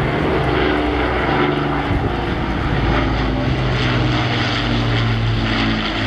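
Avro Lancaster bomber's four Rolls-Royce Merlin V12 engines running steadily as it flies its display, several engine tones beating together and shifting slightly in pitch as it passes.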